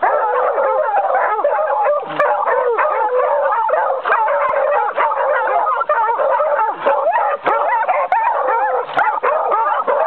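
A pack of hunting hounds baying, howling and yelping together in a continuous, overlapping chorus, giving tongue at the end of a wild boar chase.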